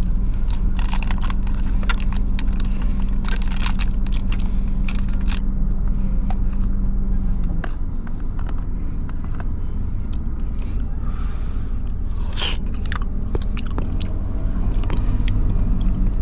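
Plastic wrapper crinkling and a spoon scraping a food cup, with chewing, in many short crackles. Under it runs the car's steady low hum, which drops away about halfway through and comes back near the end.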